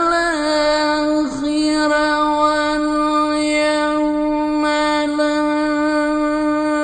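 A male Qur'an reciter holding one long, steady high note in the melodic mujawwad style, with a brief waver in pitch just after it begins and another about a second in.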